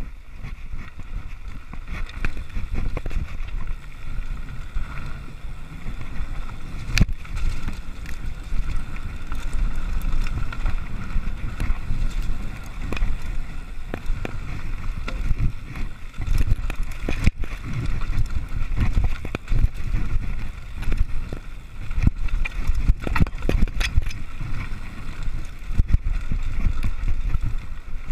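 Mountain bike descending a dirt singletrack at speed: wind buffeting the microphone with a low rumble, over the noise of the tyres on dirt and the bike rattling. Sharp knocks from bumps come now and then.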